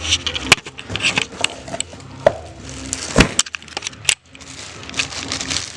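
Clicks and knocks of oil-pump parts being handled and set down, including a heavier knock about three seconds in.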